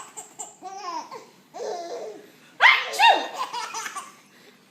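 Baby laughing hysterically at fake sneezes: high-pitched belly laughs in bursts, the loudest breaking out suddenly a little past halfway.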